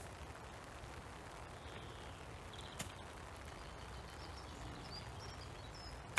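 Golf club striking the ball on a short chip shot: one sharp click right at the end, the loudest sound. Before it there is a steady low wind rumble on the microphone with a few faint bird chirps, and a light tick about three seconds in.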